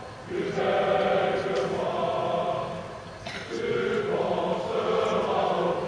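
A large group of young men singing a traditional song together, in held phrases with a brief pause for breath a little past three seconds in.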